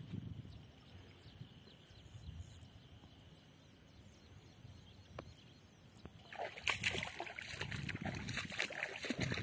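Water sloshing and splashing as feet tread through a flooded, muddy field. It starts about six seconds in, after a few seconds of quiet with only a faint low rumble.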